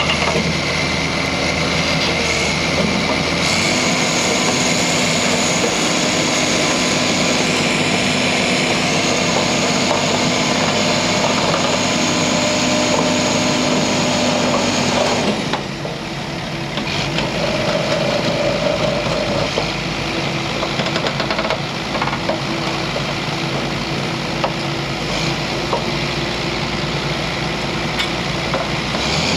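Diesel engine of a crawler-mounted earth drill rig running steadily, its note shifting about halfway through as the machine is worked.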